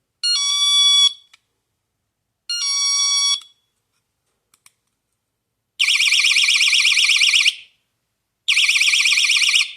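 Battery-powered magnetic entry alarm sounding twice in chime mode, a short two-note descending ding-dong, then twice in alarm mode, a loud, rapidly warbling shriek in bursts of one to two seconds.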